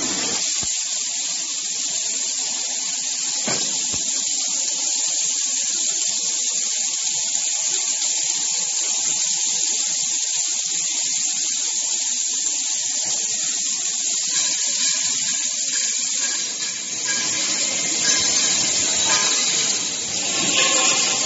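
Steady hiss of an automatic ring-seam welding machine welding rosette rings onto steel scaffolding standards, with two sharp clicks in the first few seconds.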